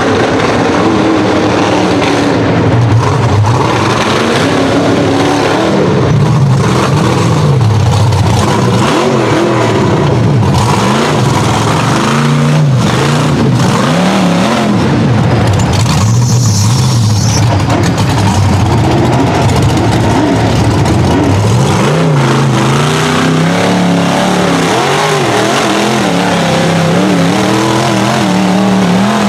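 Rock bouncer's engine revving hard as the buggy claws up a loose dirt hill, its pitch rising and falling again and again as the driver blips the throttle.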